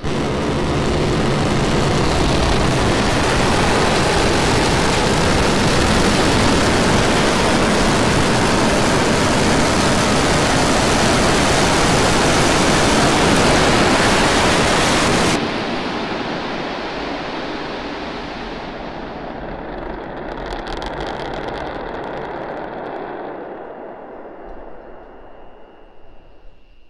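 Starship prototype's Raptor rocket engines firing for the flip and landing burn: a loud, steady rushing noise that cuts off abruptly about fifteen seconds in, leaving a fading rumble with a brief crackle around twenty seconds and a faint steady tone near the end.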